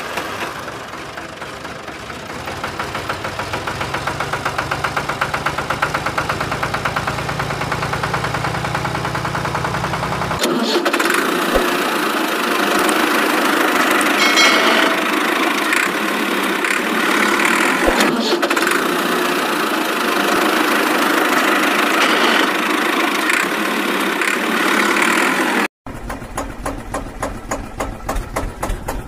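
Tractor engine running, with a rapid even pulse that grows louder over the first few seconds. About ten seconds in it switches abruptly to a louder, brighter engine sound. Near the end it drops out for an instant and resumes as a different pulsing engine sound.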